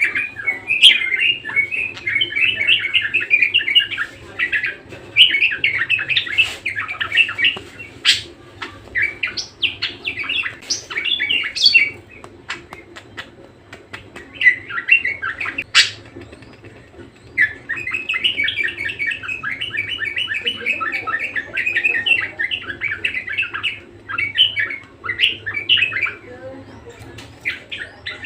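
Budgerigar warbling: long runs of fast chattering chirps with a few sharp clicks, broken by a short pause near the middle.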